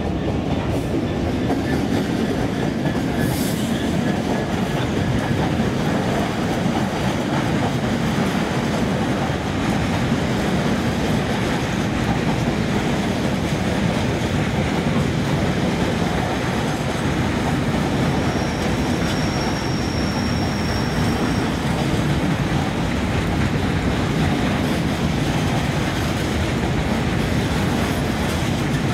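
Train running past on the rails, a steady loud rumble of wheels with clickety-clack. A thin high squeal rises above it for a couple of seconds about twenty seconds in.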